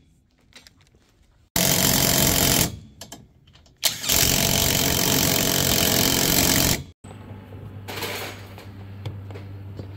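Cordless impact driver driving in bolts, in two runs: a short one of about a second, then a longer one of about three seconds. It cuts off suddenly and a much quieter steady low hum follows.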